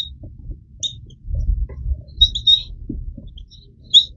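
Dry-erase marker squeaking on a whiteboard while writing: a few short, high squeaks, about a second in, around the middle and near the end, over a faint low rumble.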